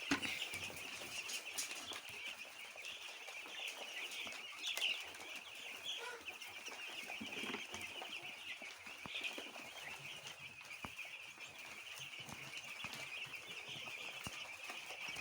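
A large flock of chickens calling continuously: a dense, steady chorus of many overlapping high-pitched calls and clucks.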